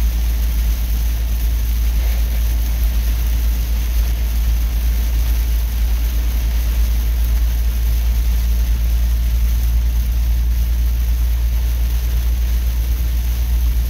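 Steady low rumble of a vehicle driving on a wet highway in heavy rain, heard from inside the cab: engine and tyre noise under an even hiss of rain and road spray.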